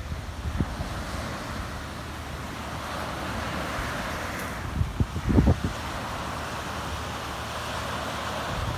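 Small waves breaking and washing up on a sandy beach: a steady surf hiss that swells about three to five seconds in. Gusts of wind buffet the microphone about five seconds in.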